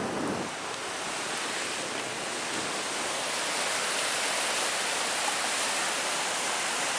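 Mountain river rushing over rapids below a footbridge: a steady hiss of white water that grows slightly louder as it goes on.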